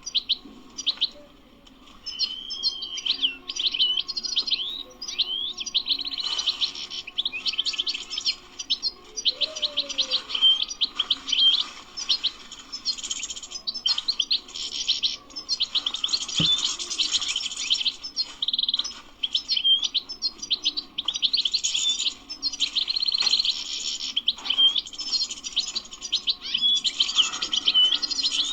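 European goldfinch singing: a fast, continuous twittering of high chirps and trills that starts about two seconds in and runs on with only brief gaps. A single click sounds about halfway through.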